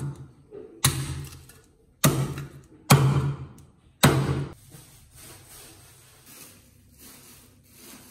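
Cleaver chopping through duck onto a thick wooden chopping block: four heavy chops about a second apart, then only faint handling sounds.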